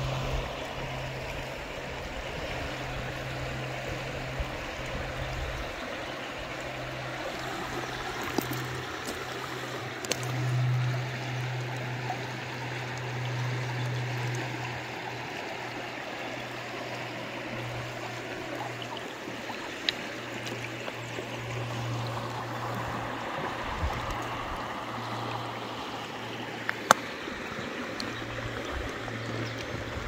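River water running: a steady rush of flowing water, with a low steady hum underneath and a few sharp clicks, the loudest about 27 seconds in.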